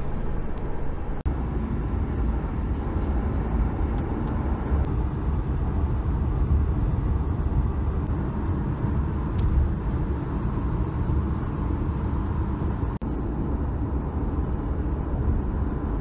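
Steady road and tyre rumble of a car cruising at highway speed, heard from inside the cabin.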